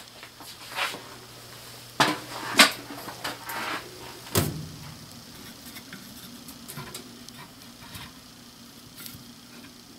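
A few scattered knocks and clicks of handling in a workshop, the loudest about four and a half seconds in, over a faint low hum.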